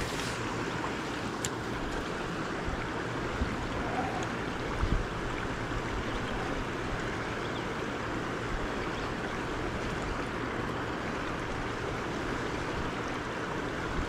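River current rushing over shallow rocky shoals: a steady, even wash of running water. A brief click right at the start.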